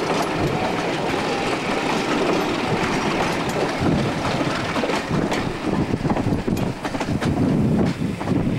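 Diesel-hauled passenger train passing close by, the locomotive's engine running as it moves off while the coaches roll past. The coach wheels clatter over the rail joints in quick clicks that come thick in the second half.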